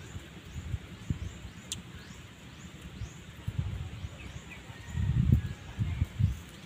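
Wind rumbling on the microphone in uneven gusts, loudest about five to six seconds in, over birds chirping in short repeated calls. A single sharp click comes about two seconds in.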